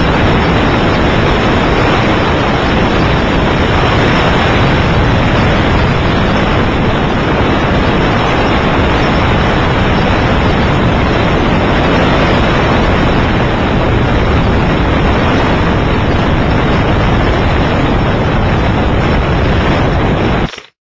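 Steady, loud engine and wind noise of an aircraft in flight, an even rushing din with no changes in pitch. It drops out abruptly for a moment near the end.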